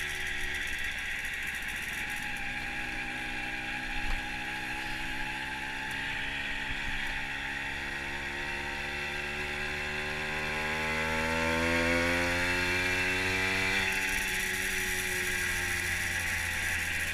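Fantic TI sports moped's two-stroke engine running under way, its pitch climbing steadily from about six seconds in to a peak near twelve seconds, then dropping back as the throttle eases, with a steady wind rush over the microphone. A brief knock about four seconds in.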